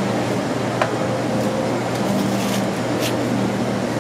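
Steady kitchen ventilation drone with a low hum, with a few sharp taps of a chef's knife on a plastic cutting board, the clearest just under a second in.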